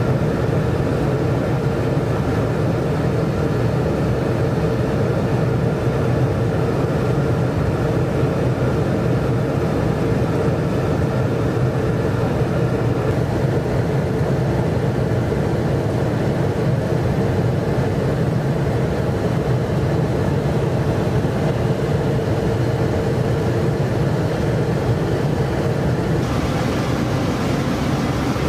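Steady drone of a jet aircraft in flight, heard from aboard: engine and airflow noise with a constant low hum. The hiss brightens slightly near the end.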